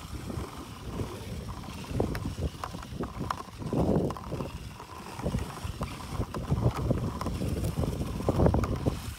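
Wind buffeting the microphone, with scattered light clicks of golf balls knocking against each other and against a PVC-pipe ball pusher as it is pushed over the grass, gathering them up.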